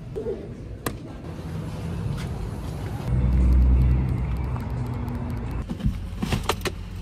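Parking-lot noise with a low rumble that swells about three seconds in, then a pickup truck door shutting with a thud near the end, followed by a quick run of clicks.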